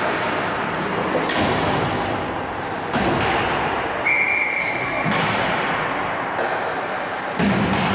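Ice hockey play in a rink: a steady wash of rink noise broken by about five sharp knocks of puck, sticks and boards. A short, steady high tone sounds for about a second around the middle.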